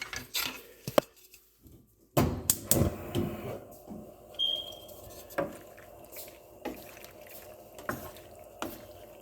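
Drained pasta being tipped into a pan of sauce: wet slopping and squelching with scattered knocks of pan and utensil. There is a brief near-silent gap about a second in.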